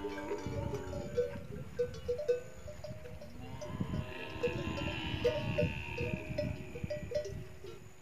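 Bells hung on grazing camels clinking irregularly: short ringing notes at a few different pitches, over a low rushing noise. A thinner, higher drawn-out sound runs through the middle.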